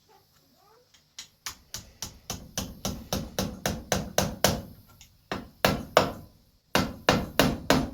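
Hammer driving small nails into a rubber piece on a boot: a fast run of sharp strikes, about four or five a second, starting about a second in and broken by two short pauses.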